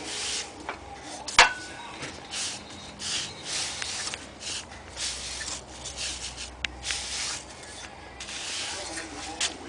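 Irregular rubbing and scraping strokes, with one sharp click about a second and a half in.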